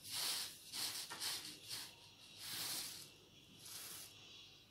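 A spatula spreading and smoothing pastry cream in a shortcrust-lined tart pan: about five short, soft scraping swishes, the first the loudest.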